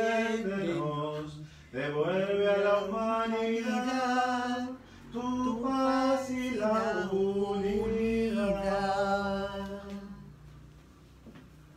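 A man singing a Spanish hymn unaccompanied, one voice holding long notes with short breaths between phrases, then trailing off about ten seconds in.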